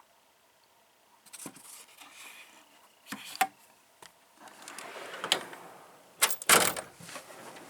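Metal toolbox drawers and hand tools being handled: clicks, light rattling and sliding, with a louder clunk about six and a half seconds in.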